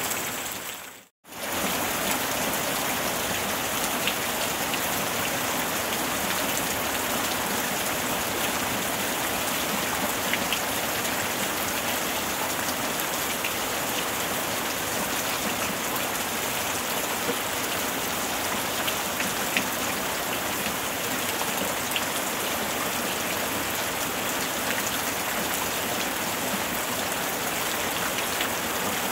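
Steady rain falling: an even hiss with scattered faint drop ticks. The sound cuts out briefly about a second in, then resumes unchanged.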